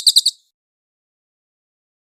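A cililin songbird's rapid trill of high, evenly repeated notes, about a dozen a second, that cuts off about a third of a second in, leaving silence: a pause between song phrases.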